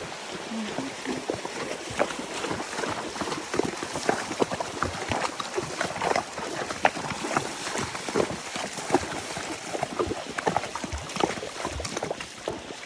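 Horse's hooves clopping along a trail, an irregular run of knocks.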